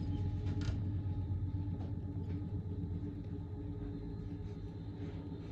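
Freight train's distributed-power diesel locomotive rumbling past with a steady engine drone, slowly fading as it moves away.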